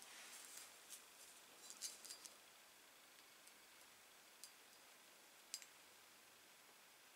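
Near silence with a few faint, scattered clicks and rustles: a gloved hand handling a pair of rusted carpenter's pincers.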